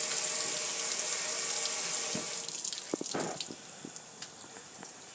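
Water streaming and splashing down over a gas grill's metal lid and control panel in a steady hiss, which stops a little over two seconds in and leaves scattered drips and ticks.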